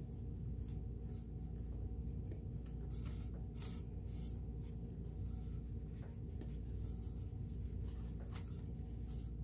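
A rag rubbing and wiping inside the metal top housing of a Kenmore sewing machine, drying it after degreasing: short, irregular scratchy rustles over a steady low hum.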